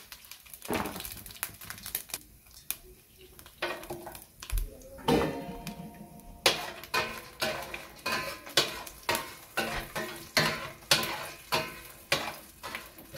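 Whole spices sizzling lightly in hot oil in a stainless steel pot. From about halfway through, a utensil stirs them, scraping and knocking against the pot about twice a second.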